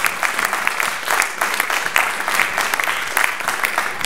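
Audience applauding, a dense, even stream of clapping.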